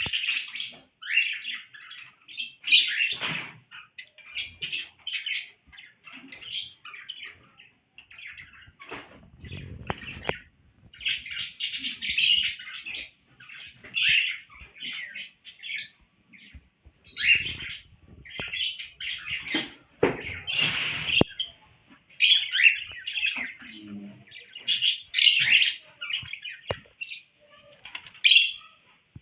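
Small pet parrots (cockatiels, lovebirds and budgies) chirping and chattering in quick, overlapping bursts, with a couple of short flurries of wing flapping.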